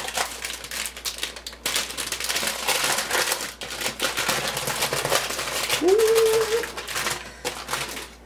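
Thin plastic packaging crinkling and crackling as it is handled and opened, a continuous run of quick crackles.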